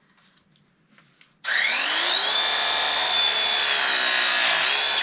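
Cordless power tool's motor running. It starts suddenly about a second and a half in with a whine that rises in pitch, holds steady for about three seconds, and dips briefly just before it stops.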